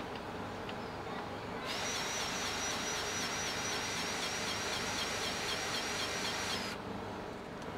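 Steam hissing from a steam locomotive. The hiss starts about two seconds in and cuts off sharply near the end, carrying a faint high wavering whine.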